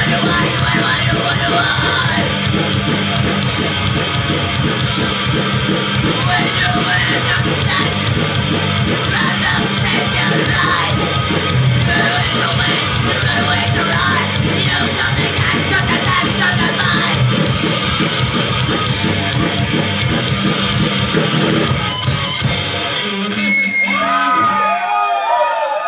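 Punk band playing live: distorted electric guitar, bass and drums with yelled vocals. About 23 seconds in the drums and bass stop, leaving a few ringing guitar tones that bend in pitch as the song ends.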